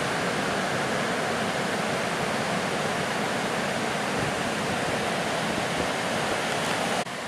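Steady roar of heavy surf breaking and washing up the beach. It drops abruptly in level near the end.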